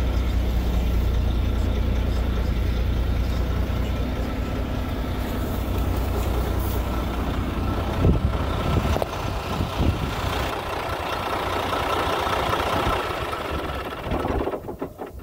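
International truck engine idling steadily, a low hum at first, then louder and brighter in the mid-range heard close to the open engine bay. There is a thump about eight seconds in, and the engine noise drops away near the end.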